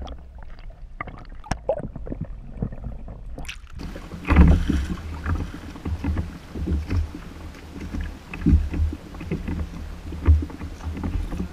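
Underwater camera audio, quiet with scattered clicks, then about four seconds in the sound changes to open air aboard a kayak on choppy sea: wind rumbling on the microphone and water splashing against the hull in repeated low thumps.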